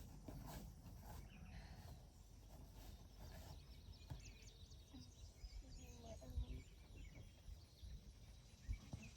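Quiet outdoor ambience: a low steady rumble with a few faint high chirps a few seconds in, and a couple of soft low thuds in the second half.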